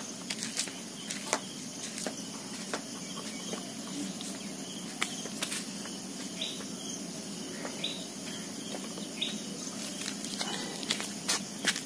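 Scattered small clicks and taps of hands handling a scooter's plastic rear mudguard and the small lights mounted on it, over a steady outdoor background.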